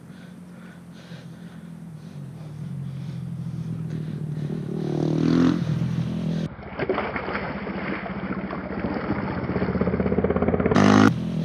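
A motor engine drones steadily and grows louder, as if coming closer. Near the end, water splashes as a released pike kicks away from the angler's hands.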